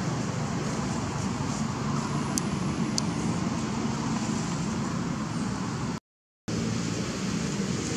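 Steady low rumble of motor-vehicle traffic, with the sound cutting out completely for about half a second some six seconds in.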